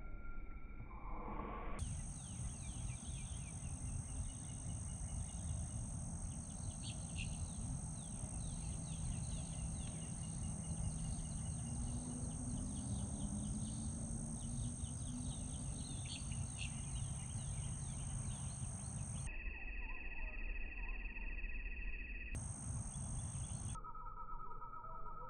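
Birds chirping over a steady outdoor background with a low wind rumble on the microphone. The chirping stops about three-quarters of the way through, where the background changes abruptly.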